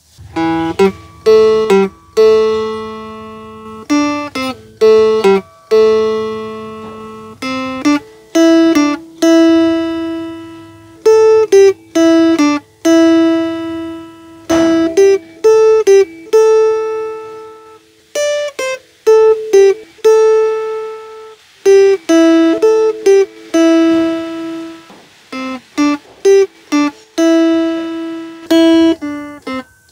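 A melody plucked on a homemade box-bodied phin (Isan lute), note by note. Some notes ring on and fade for a second or two, others come in quick runs of short notes; a long note comes from holding the fretting finger down, a short one from lifting it too soon.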